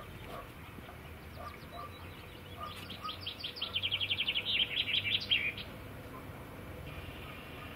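A songbird sings one fast trilled phrase of high notes that speeds up and ends with a short flourish. It starts about three seconds in and lasts about three seconds, over a low steady background rumble.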